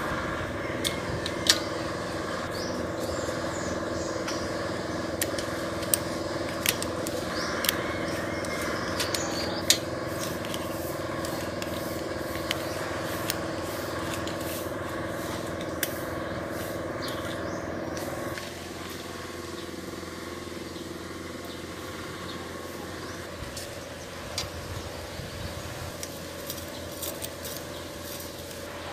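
Sharp metal clicks and taps of bicycle brake parts and bolts being handled and fitted onto the frame and fork, over a steady low drone that drops and changes about two-thirds of the way through.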